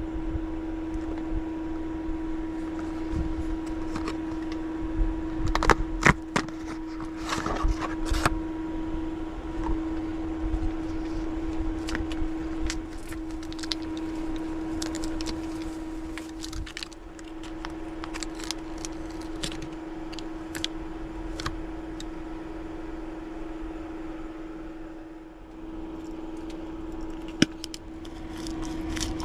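A steady electric hum with scattered clicks, taps and light clatter of small objects being handled at close range.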